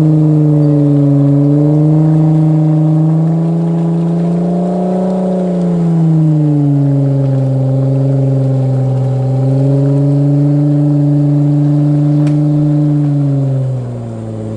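Off-road 4x4's engine held at high revs under heavy load as the vehicle strains through deep mud. The pitch swells up and eases back a couple of times, then the revs drop shortly before the end.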